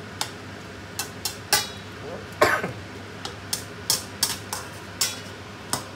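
Slotted metal spatula clanking and scraping against a stainless-steel wok while stir-frying vegetables, in about a dozen irregular strokes.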